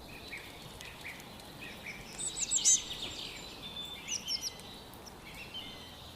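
Songbirds chirping: quick runs of high chirps, loudest a little over two seconds in and again about four seconds in, with scattered softer notes over a faint steady hiss.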